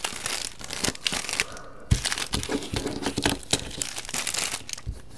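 Packaging wrappers crinkling and being crumpled as they are handled, with scattered clicks and a knock about two seconds in.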